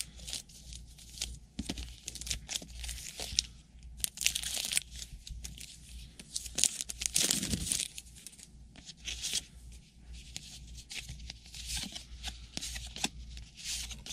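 Trading card pack wrappers being torn open and crinkled: a string of short rips and crackles, with one longer, louder rip a little after halfway.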